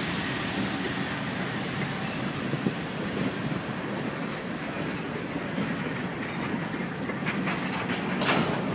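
Norfolk Southern mixed freight train passing close by, its GE Dash 9-40CW locomotive giving way to tank cars: a steady rumble of wheels on the rails, with sharper clicks and knocks near the end.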